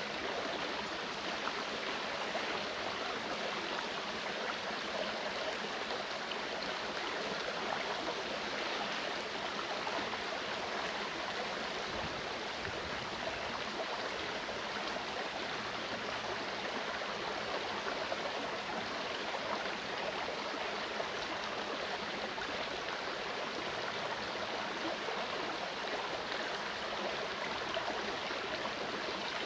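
Mountain stream flowing and gurgling over rocks, a steady rush of water.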